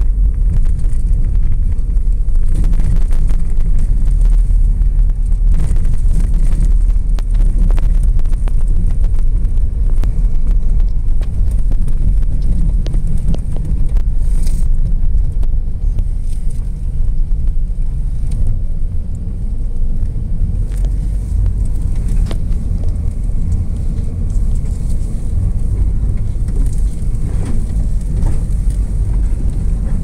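Steady low rumble of a car driving over a packed-snow road, heard from inside the cabin: engine and tyre noise, easing slightly about halfway through.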